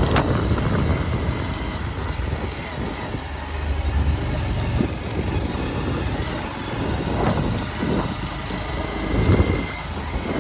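Uneven low rumble of a moving vehicle, with wind buffeting the microphone, while riding along a rough concrete road.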